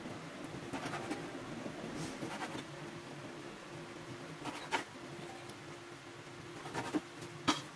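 Kitchen knife slicing raw pork tenderloin on a wooden cutting board: soft scraping of the blade through the meat, with a few sharp taps as it meets the board, the loudest about halfway through and near the end. A faint steady hum runs underneath.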